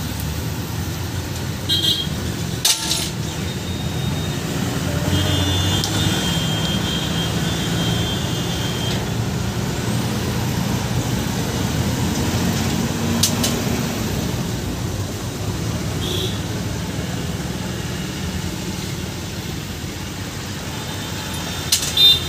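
Road traffic passing: a steady rumble of engines, with a high horn note held for a few seconds near the middle and a couple of short high toots. A few sharp knocks stand out now and then.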